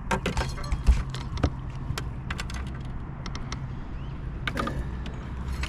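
Handling noise on a fishing boat: scattered sharp clicks, knocks and light metallic rattles of tackle being handled, over a steady low hum.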